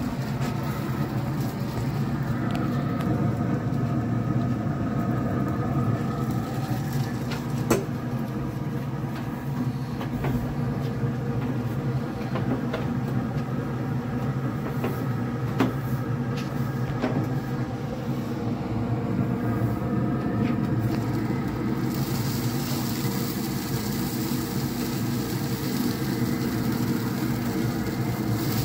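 Traeger pellet grill's fan running with a steady hum while the lid is open, with a few sharp clicks of a spatula on the metal grate. A hiss joins in about two-thirds of the way through.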